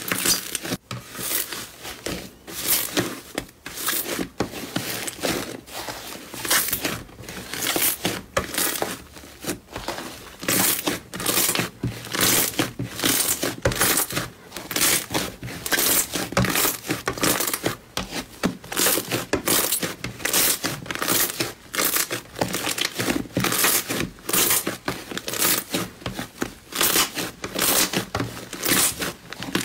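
White fluffy slime squeezed and kneaded by hand, crackling and crinkling in short bursts about one to two a second as it is pressed and pulled.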